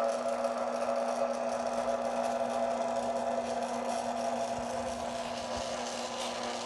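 Yaesu G-5400 azimuth-elevation antenna rotator's motor running steadily, a constant mechanical hum with a steady low tone, as it turns the antenna array under PC control.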